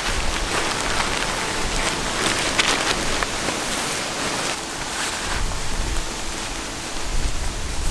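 Nylon tent fabric and a plastic tarp rustling and crinkling as the tent is pressed flat, rolled up and stuffed into its stuff sack. Wind buffets the microphone as low rumbles in the second half.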